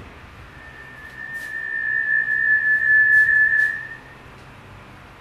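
A single high whistle held on one steady note, swelling louder for about three seconds and then stopping abruptly about four seconds in.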